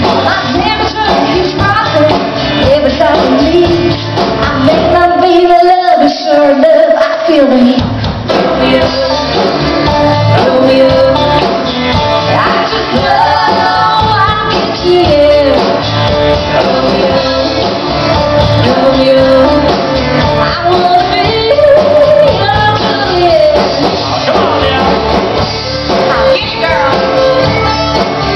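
Live band playing an up-tempo song, with a woman singing lead over guitars, keyboard, fiddle and drums. About five seconds in, the bass and drums drop out for a couple of seconds, then the full band comes back in.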